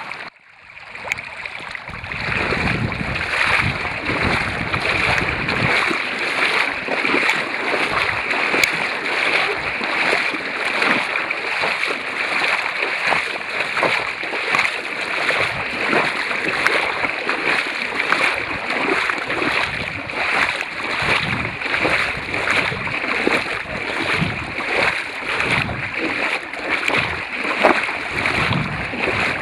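River water rushing and splashing: a steady, loud wash of water noise with many small splashes through it.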